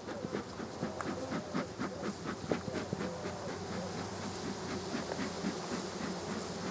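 Honey bees buzzing around an open hive, individual bees zooming close past with their pitch bending up and down.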